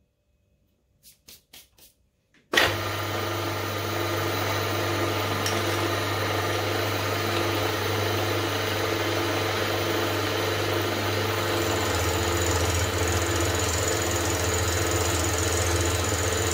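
A few light clicks of the workholding being handled, then a small milling machine's spindle motor switches on about two and a half seconds in and runs steadily with a low hum, its end mill cutting a brass workpiece and throwing chips.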